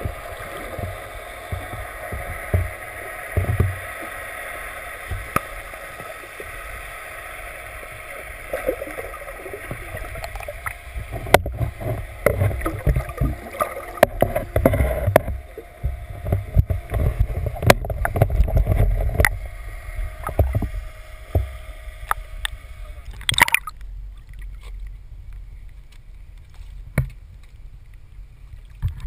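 Muffled underwater sound heard through a GoPro housing: a steady hum, then from about eleven seconds in a run of sharp knocks, low thumps and splashing as a hooked striped bass thrashes at the surface. Near the end the sound turns quieter and clearer once the camera is out of the water.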